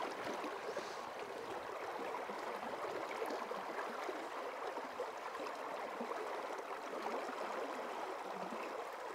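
River current rushing steadily, an even hiss of flowing water with no breaks.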